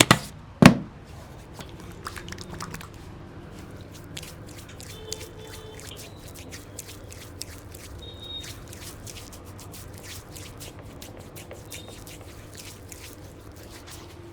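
Close-miked head massage: two sharp smacks of hands on the head within the first second, then soft rubbing of fingers on scalp and hair, heard as a stream of faint crackles and ticks.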